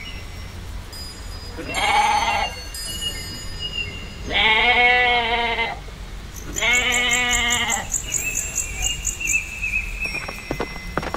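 Sheep bleating three times, each bleat about a second long with a wavering pitch. Near the end, the rapid clip-clop of horse hooves begins.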